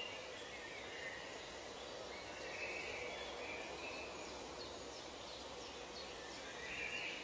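Nature ambience recording: a steady background hiss with faint bird calls, swelling into brief patches of high calling about a second in, around three seconds in and again near the end.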